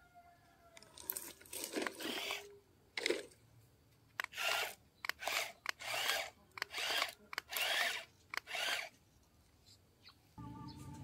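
Toy remote-control excavator's small electric motors and plastic gearboxes whirring in about ten short bursts as the cab slews and the boom and bucket move, each burst under a second with pauses between.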